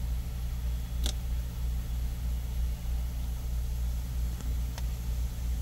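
A steady low rumble of running machinery, with a single sharp click about a second in and two faint ticks near the end.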